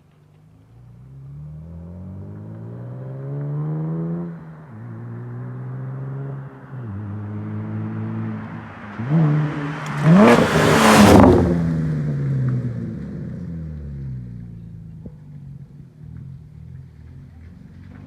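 2014 Camaro 3.6 V6 running through straight pipes instead of mufflers, accelerating: the engine note climbs and drops back twice, then hits its loudest, hardest rev about ten seconds in before the pitch falls away and the sound fades.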